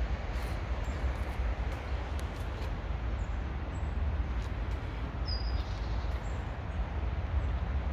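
City street ambience on a handheld phone: a steady low rumble and hiss, with a few faint clicks and a short high chirp a little past five seconds in.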